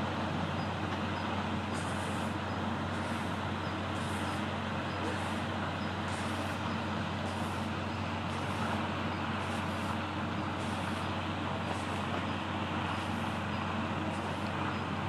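Steady background drone: a constant low hum under an even rushing noise, with faint high-pitched ticks or chirps about once a second.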